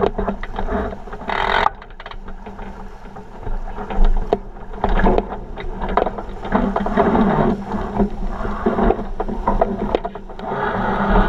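Water rushing and splashing against the hull of a 49er sailing skiff under way, swelling and fading in surges, with wind buffeting the microphone. Scattered sharp knocks sound through it.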